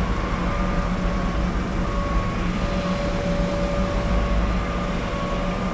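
Steady machinery drone: a constant rushing noise with a low hum and faint held whining tones.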